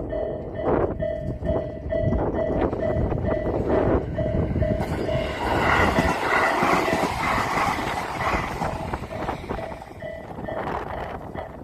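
A Japanese level-crossing warning alarm, of the Isesaki type used on the Tobu Isesaki Line, sounding a repeating tone about two to three times a second while a train runs over the crossing. The train's wheels clack over the rail joints, then pass in a loud rush. The alarm stops shortly before the end.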